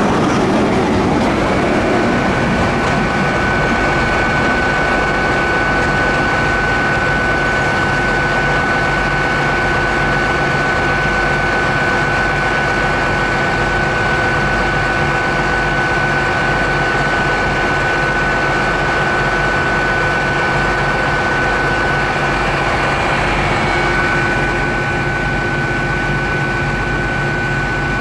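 A train's diesel engines running steadily while it stands, a constant low drone with a steady high whine over it, easing slightly about 23 seconds in.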